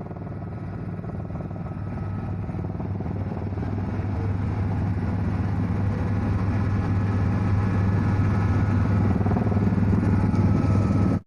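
Helicopter engine and rotor noise: a steady low hum with a drone of steady tones, growing gradually louder, then cutting off suddenly near the end.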